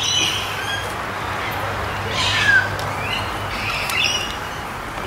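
Birds chirping and calling: a few short high falling chirps and scratchy calls, over a steady low hum that fades out about three seconds in.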